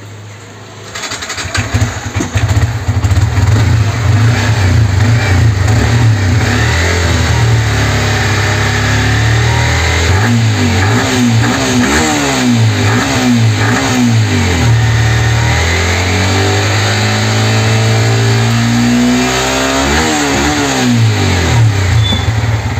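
Yamaha MT-15's 155 cc single-cylinder four-stroke engine starts about a second in, idles, then is revved in a series of short throttle blips in the second half. It runs without the tappet-like knock it had: the worn rocker arm has been replaced.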